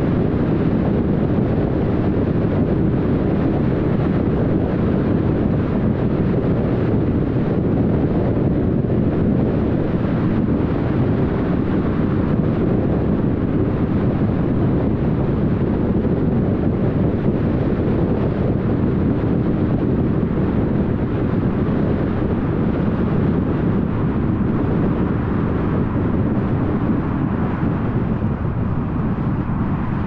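Car driving along a road: a steady rush of tyre and road noise mixed with wind, easing slightly near the end.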